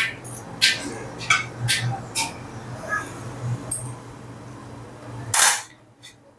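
Metal skewer clicking and scraping as grilled paneer tikka pieces are pushed off it onto a plate. A run of sharp clicks comes in the first two seconds or so, then one longer scrape about five seconds in.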